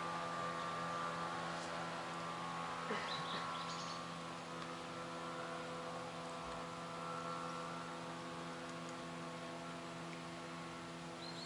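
A boat's motor running with a steady drone that slowly fades away, with a couple of faint high chirps about three seconds in.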